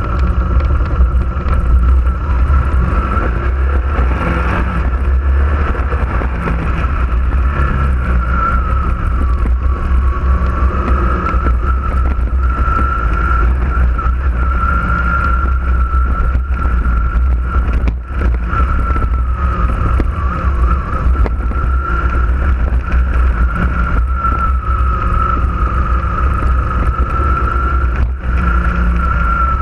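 Off-road vehicle driving along a dirt track: its engine and running gear make a steady high whine that wavers slightly in pitch over heavy low rumble from wind and vibration on the vehicle-mounted camera.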